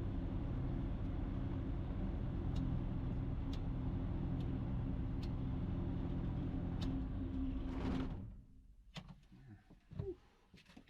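Ikarus C42 microlight's engine running steadily at idle and then shut down, stopping abruptly about eight seconds in. After that there are only a few faint clicks and a brief low knock.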